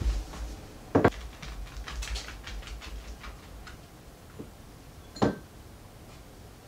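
Footsteps and movement on a tatami mat floor: two soft knocks, one about a second in and a sharper one about five seconds in, with faint scattered ticks between them.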